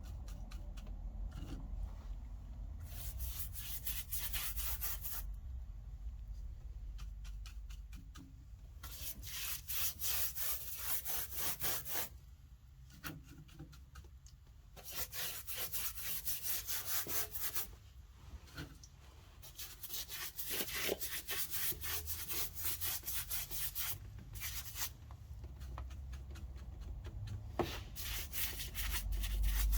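Hand sanding of cured car body filler on an Opel Ascona's bodywork: quick back-and-forth rasping strokes that come in several bouts, with short pauses between them.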